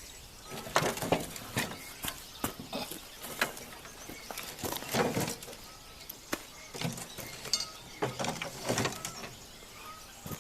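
A Cub Cadet snowblower attachment being tipped up and handled: irregular knocks, clunks and scrapes, loudest about a second in and again around five seconds in.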